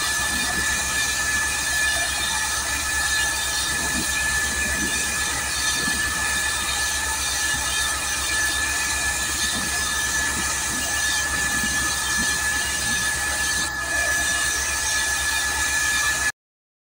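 Compressed air from a truck-mounted water well drilling rig blowing water and spray up out of the borehole: a loud, steady hiss with a constant high whine and a low machine drone underneath. It cuts off suddenly near the end.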